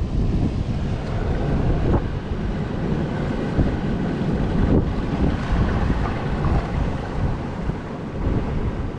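Strong wind buffeting the microphone in gusts, over the wash of surf on the shore.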